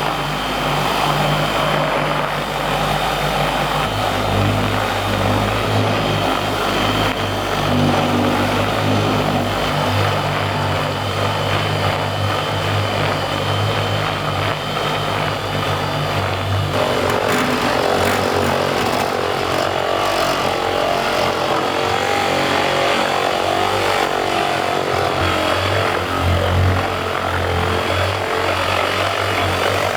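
Electric polisher running with a wax buffing pad against a powder-coated steel toolbox, a steady motor hum and pad whir that shifts in pitch as it is loaded. The sound changes about seventeen seconds in.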